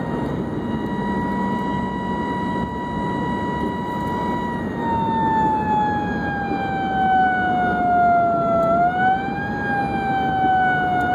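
Emergency vehicle siren wailing: one tone held steady for about five seconds, then sliding slowly down and rising a little again near the end, over steady road and engine noise.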